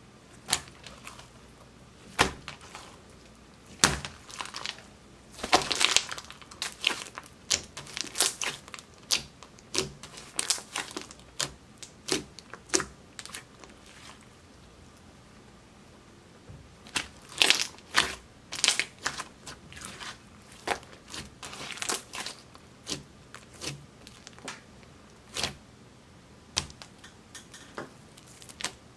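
Clear slime mixed with red makeup and glitter being pressed, folded and stretched by hand, giving irregular sticky pops and crackles, with a quiet pause of a couple of seconds about halfway.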